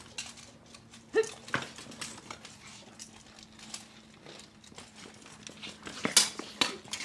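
Steel swords clashing against each other and against plate armor: a couple of sharp clanks about a second in, then louder, quick clashes near the end as the two fighters close.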